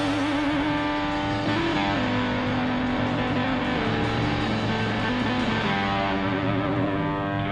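Distorted electric guitar holding long notes with wavering vibrato, stepping down in pitch about two seconds in and bending slowly later, with no drums under it.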